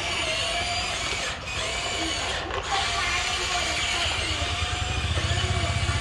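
Huina remote-control excavator's electric motors and gearboxes whining as it drives its tracks through a shallow puddle, with a low rhythmic pulsing growing from about four seconds in.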